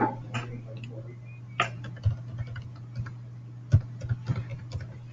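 Computer keyboard keys being typed, as separate clicks at uneven spacing, over a steady low hum.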